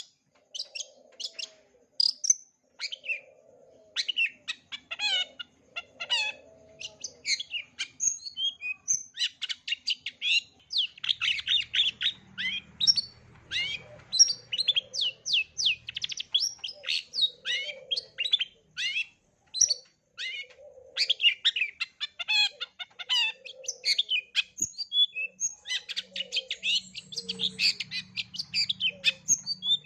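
Long-tailed shrike singing a fast, unbroken string of varied high chirps, trills and short whistles, the mimicked phrases of other birds that make up its 'isian'. Soft low notes recur every second or two beneath the song.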